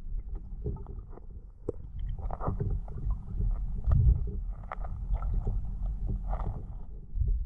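Muffled underwater water movement picked up through a GoPro's waterproof housing: a steady low rumble with irregular swishes and scattered small clicks and knocks.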